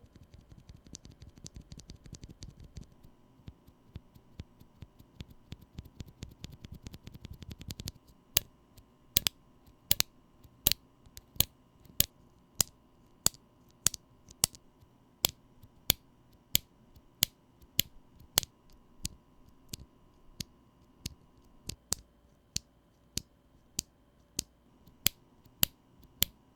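Holy Yok Panda tactile mechanical keyboard switches being pressed. A quick patter of keystrokes for the first several seconds, then single sharp clacks about one and a half a second.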